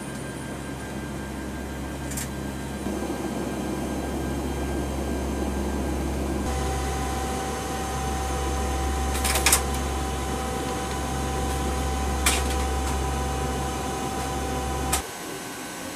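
Steady cabin drone of a P-3 Orion in flight, the hum of its four Allison T56 turboprops with several steady tones, broken by a few short sharp clicks, the loudest about nine and a half seconds in.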